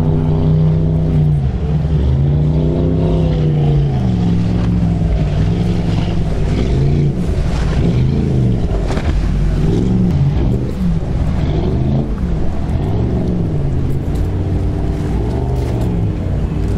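Speedboat engine running close by, its pitch swinging up and down every second or two.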